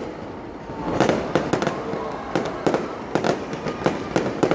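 Fireworks going off in a dense run of sharp pops and crackles, bunched in irregular clusters. There is a brief lull in the first second, and the popping picks up again about a second in.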